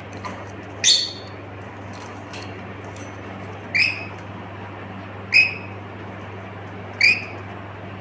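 A pet lory parrot giving four short, loud calls about a second and a half apart.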